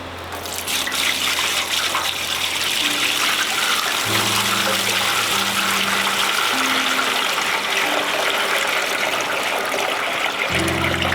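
Water pouring in a steady stream, starting just under a second in and running on without a break.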